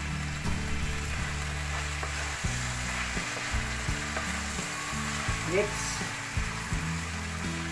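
Vegetables and kikiam sizzling in a frying pan while being stir-fried with a wooden spatula, which knocks and scrapes against the pan now and then. Low steady tones run underneath, shifting about two and a half seconds in.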